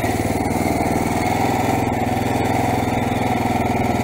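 2022 Kawasaki KLR 650's single-cylinder four-stroke engine idling steadily moments after a cold start, warming up.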